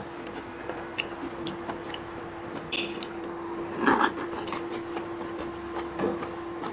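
Small clicks and scrapes of eating at a hotpot table, with chopsticks and skewers against bowls, over a steady hum. There is a louder clatter about four seconds in.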